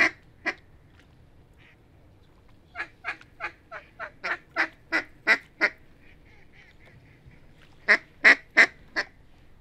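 Duck quacking: two quacks at the start, a run of about ten quacks at roughly three a second that grows louder, then four loud quacks near the end.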